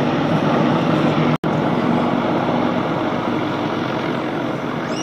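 Helicopter flying past, its rotor and engines making a steady low drone with rushing noise. The sound cuts out for an instant about a second and a half in.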